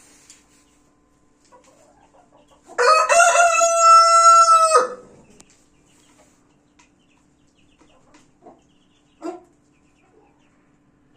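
Young Brahma cockerel crowing once, a single crow of about two seconds starting near three seconds in. It is followed later by a couple of short, faint calls.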